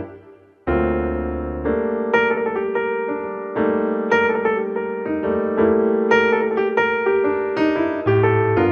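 Background piano music: chords and a melody played at a moderate pace, with a short lull just under a second in.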